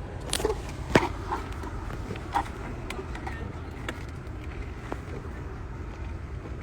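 Steady low rumble of a car idling, heard from inside the cabin, with scattered sharp clicks and knocks, the loudest about a second in.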